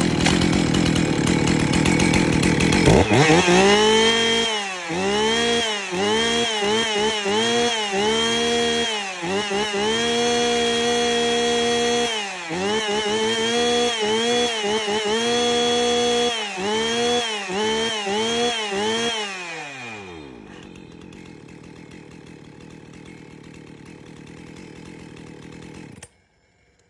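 Husqvarna 254 XP two-stroke chainsaw pull-started and running. It is revved over and over with the throttle, the revs rising and falling and held high for a few seconds at a time. About 20 seconds in it drops back to idle, and it is switched off abruptly near the end.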